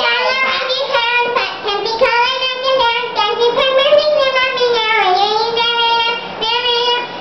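A girl singing with her voice altered by helium inhaled from a balloon, holding long notes, with a dip in pitch about five seconds in.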